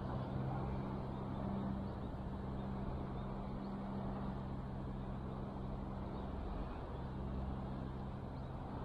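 A distant engine running steadily: an even low hum over outdoor background noise.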